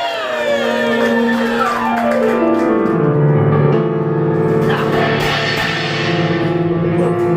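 Live grand piano: a fast run sweeping down the keyboard about two seconds in, landing on low, heavy chords and driving repeated notes. Whoops from the crowd ring over the first second or so.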